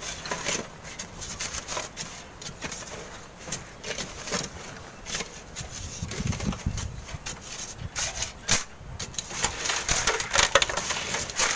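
Hand shovels and hoes scraping and digging into coarse sand and gravel, with irregular scrapes and clinks of metal tools on stones. A brief low rumble about six seconds in.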